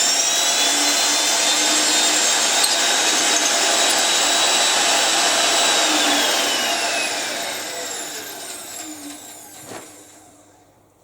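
Titan PMD 16 magnetic-base drill's motor running at speed, then switched off about six seconds in and winding down, its whine falling in pitch until it stops. A short knock sounds near the end.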